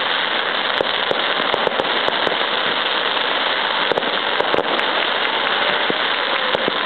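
Fireworks grand finale: a dense, continuous crackle with many sharp cracks going off throughout.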